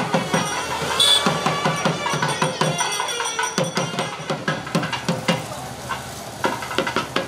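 Traditional festival music led by fast, dense hand-drumming, with held melodic tones over the drums and a bright metallic strike about a second in.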